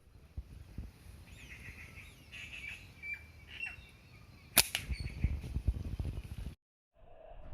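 Small birds chirping, then a single sharp crack of a slingshot shot about halfway through, followed by low rustling noise until the sound cuts off abruptly.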